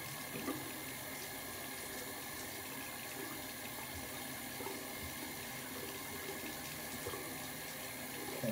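Bathroom sink faucet running steadily, water streaming into the basin.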